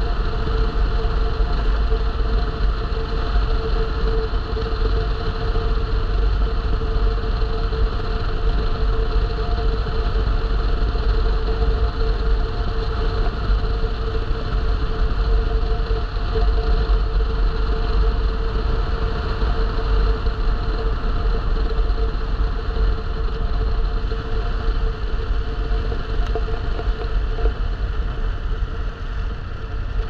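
A vehicle running at a steady pace, with engine drone and road noise: a low rumble and a few steady tones that do not change.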